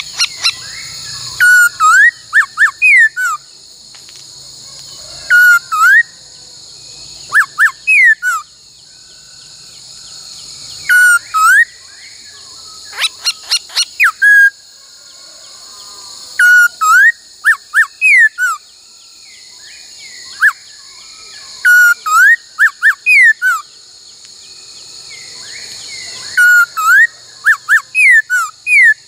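A bird whistling loud, clear slurred phrases of three or four notes, repeated every two to three seconds; this is the 'bắt cô trói cột' call used to train laughingthrushes. About halfway through comes a quick run of rapid notes. A steady high-pitched drone runs underneath.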